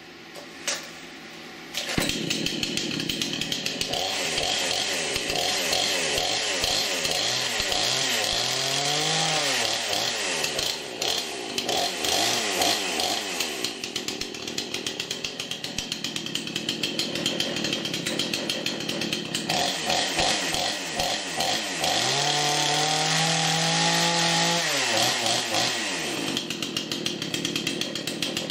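A Craftsman S205 46 cc two-stroke gas chainsaw, cold, fires up about two seconds in and keeps running. It is revved up and let back down twice, once about a third of the way through and again near the end.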